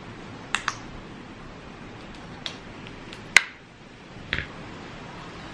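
Mayonnaise squeeze bottle spluttering in a few short pops as it is squeezed, with one sharper click a little past the middle, over a steady background hiss.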